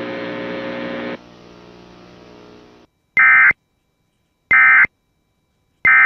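A steady buzzing hum that drops in level just after a second in and stops near three seconds in, followed by three short screeching bursts of Emergency Alert System SAME data tones about a second and a half apart: the end-of-message code that closes the alert.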